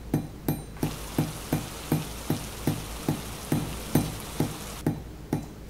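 Heavy rain: a steady hiss of rainfall that comes in about a second in and cuts off abruptly shortly before the end. Underneath it runs soft background music with an even plucked beat about three times a second.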